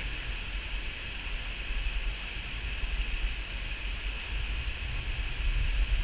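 Fast river water rushing steadily over rocks, with an uneven low rumble underneath.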